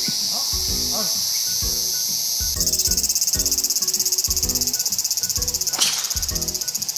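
Insects shrilling in a high, dense chorus that switches to a fast pulsing trill about two and a half seconds in, over background music with a steady beat. A single sharp click comes near the end.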